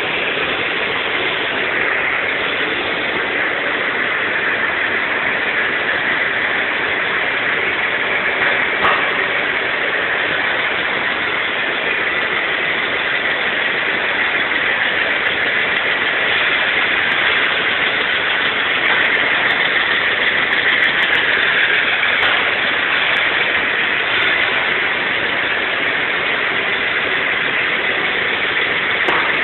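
Steady industrial machinery noise, an even hiss and hum with no rhythm, typical of the pumps and equipment of a paint circulation system; it swells a little about two-thirds of the way in.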